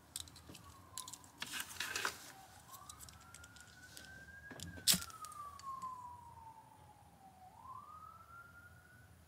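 An emergency vehicle siren in a slow wail: a single tone rising and falling over several seconds at a time. A few clicks come early, and a sharp knock about five seconds in is the loudest event.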